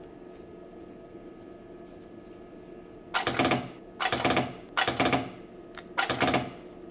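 Homemade battery spot welder firing four times, each weld a short burst of about half a second, as its probes weld thin nickel strip onto lithium-ion cells to join them into a pack.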